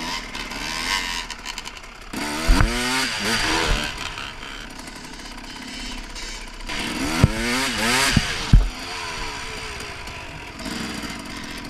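Dirt bike engine revving hard in two bursts, about two seconds in and again about seven seconds in, its pitch sweeping up and down, with a few sharp knocks during the bursts. A steady rushing noise fills the gaps between the bursts.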